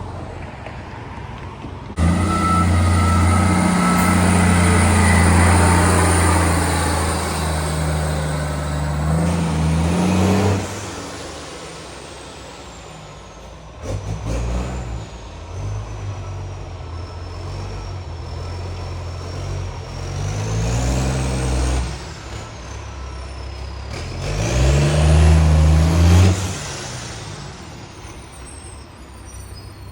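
Garbage truck's diesel engine revving hard through a leaking exhaust pipe, very loud: it jumps up about two seconds in, climbs and falls around ten seconds, then revs twice more, the last rev the loudest. A high whine rises and falls with the revs.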